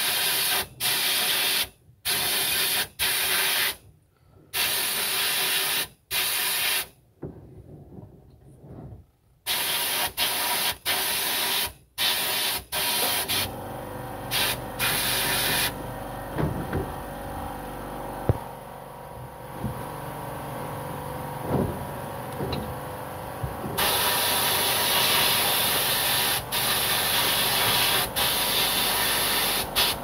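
Abrasive blast-cabinet gun cleaning crankshaft parts: a loud hiss of air and grit fired in many short bursts, on and off roughly every second. About halfway through, a low motor hum starts underneath and the hiss runs more steadily, drops away for several seconds, then resumes loud.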